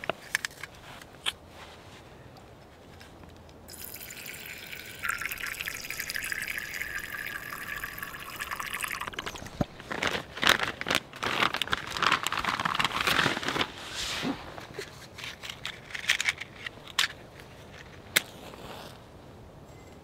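Liquid poured in a steady stream for about five seconds, followed by a spell of light clinks and knocks, with a few sharp clicks near the end.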